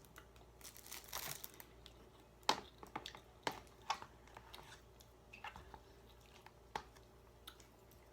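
Sounds of someone eating spicy instant ramen: scattered sharp clicks, a few seconds apart, and a short soft noisy sound about a second in, over a low steady hum.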